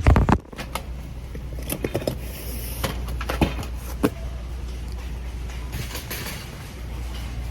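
A sharp knock at the start, then scattered clicks and knocks over a steady low hum.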